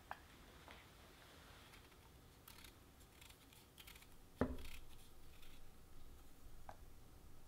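Kitchen knife shaving the thin astringent inner skin off a raw chestnut: faint scrapes and small clicks of the blade cutting the hard nut. One sharp knock on the wooden cutting board about four and a half seconds in is the loudest sound.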